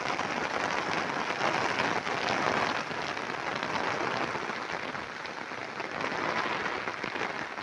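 Heavy rain falling steadily: a dense hiss of countless small drop impacts.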